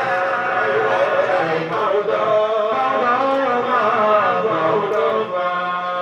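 Group of men chanting an Islamic devotional song in praise of the Prophet Muhammad, a lead voice with others joining, sung into microphones and amplified.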